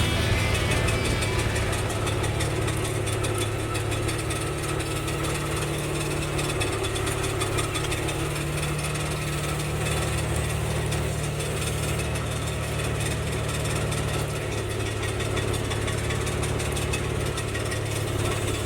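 A vehicle engine running steadily at low revs, a constant low hum.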